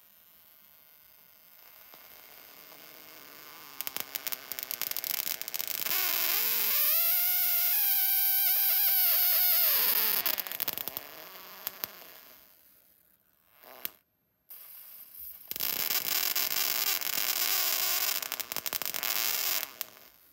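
High-voltage arc from a flyback transformer's output lead jumping to the electrode of a U-shaped glass discharge tube, hissing and crackling, with a wavering buzzing tone in the middle. It dies away and cuts out briefly about two-thirds of the way through, then crackles again until near the end.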